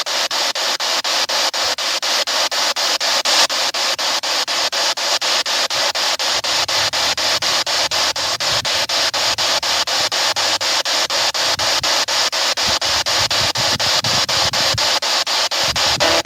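Spirit box scanning through radio stations: loud hissing static chopped into a fast, even rhythm several times a second as it jumps from channel to channel, with faint snatches of low sound breaking through from about six seconds in.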